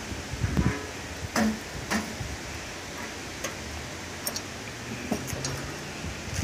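Hickory wood chunks set down on lit charcoal briquettes in a smoker's steel mesh firebox basket: a few sharp knocks about a second apart, then lighter clicks.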